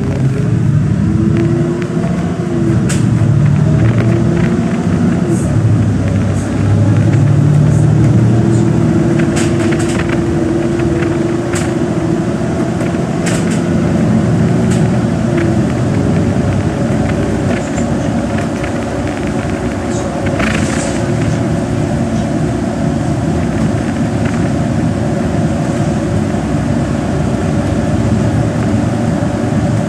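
Inside a NefAZ 5299 city bus under way: the engine runs steadily under the hiss and rumble of tyres on a wet road, with scattered clicks and rattles from the bodywork.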